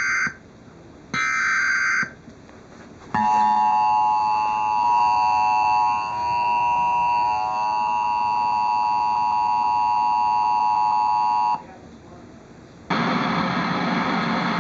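Emergency Alert System tornado-warning alert: the end of one SAME digital header burst right at the start and a second raspy data burst about a second in, then the steady two-tone EAS attention signal held for about eight seconds before cutting off sharply. A synthesized voice starts reading the warning near the end.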